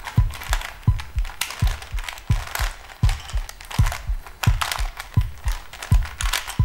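Music with a steady low thudding beat, about three thuds a second, under sharp clicks and crackles.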